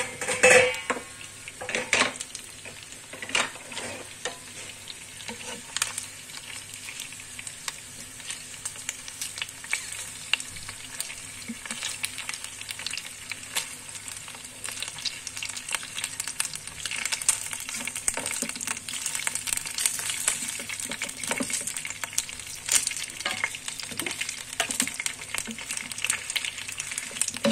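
Chicken pieces sizzling in hot oil in a non-stick frying pan, with a wooden spatula scraping and knocking against the pan as the pieces are turned. The loudest moment is a sharp hiss about half a second in.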